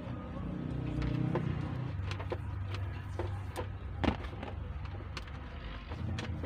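A steady low mechanical hum, like a running engine, shifting slightly about two seconds in, with scattered light clicks and taps.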